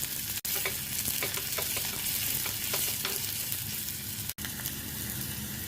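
Food frying in hot oil in a pan: a steady sizzle with small crackles and pops, cut off for an instant twice.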